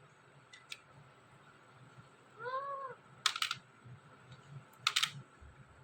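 Green ringneck parrot giving one soft, short meow-like call that rises and falls in pitch, about two and a half seconds in, followed by a few sharp clicks about three and a half and five seconds in.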